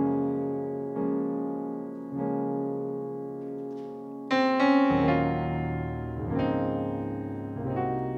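Piano chords played on a Yamaha MX88 keyboard, each one held and left to ring as a new chord is struck every second or so, the loudest about four seconds in. It is the slow introduction to a song.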